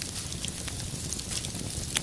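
Wood fire crackling in a fireplace: a steady low rumble of burning logs with scattered small crackles, and a sharper pop right at the end.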